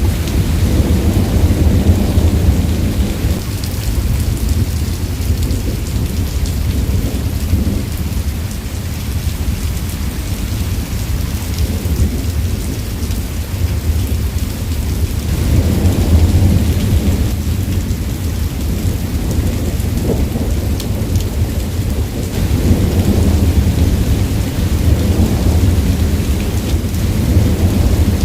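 Thunderstorm: steady rain hissing, with rolling thunder rumbling underneath and swelling three times, near the start, a little past halfway and near the end.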